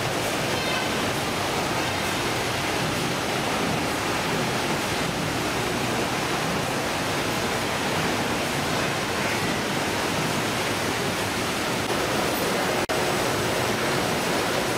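Steady, even rushing noise of fish-processing machinery, conveyors and running water on a ship's factory deck. Near the end there is one brief dropout.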